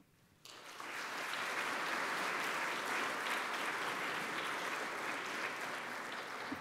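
Audience applauding, starting about half a second in, holding steady, then beginning to fade near the end.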